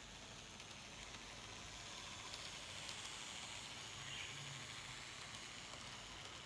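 Faint running of an N-scale model tram on street track: a soft whir with a few light clicks, a little louder in the middle as it passes.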